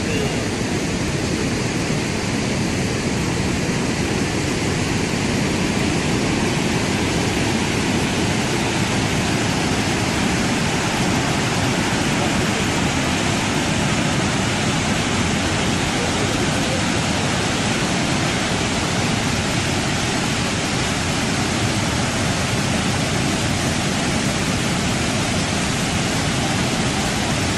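Niagara Falls pouring over its crest: a steady, unbroken rushing of falling water.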